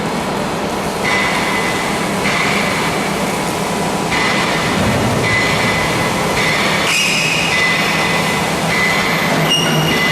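CNC tube-drilling machine running with a steady loud noise, and a high-pitched metallic squeal that starts and stops every second or two.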